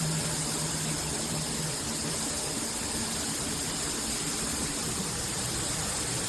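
Handheld shower head spraying water steadily: a constant hiss of running water.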